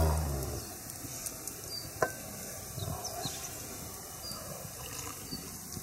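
Small wood campfire crackling, with scattered faint ticks and pops over a low hiss. A dull thump comes right at the start and a sharp click about two seconds in.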